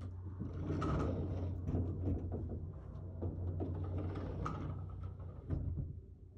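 Sliding glass patio door being opened and rolled along its track, with scattered clicks and scrapes and a sharp knock about five and a half seconds in, over a low steady hum.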